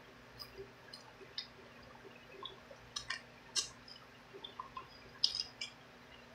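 Close-up chewing of a fried chicken wing: scattered wet mouth clicks and small crunches, with a few sharper ones around the middle and near the end.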